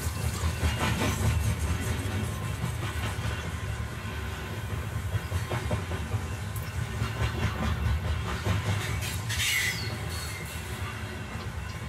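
Heritage steam-hauled passenger train running along the line, with the carriage wheels clattering over the rails above a steady low rumble. A short, higher-pitched sound stands out about three quarters of the way through.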